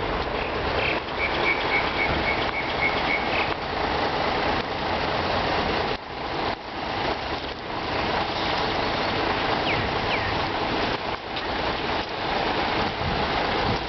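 Steady outdoor traffic noise with a hiss like wind or rain on the microphone. About a second in, a quick run of about eight high, evenly spaced beeps sounds over it.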